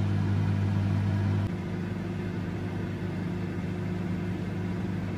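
Microwave oven running with a steady low hum. About one and a half seconds in, the deepest part of the hum drops away with a faint click, leaving a quieter steady hum.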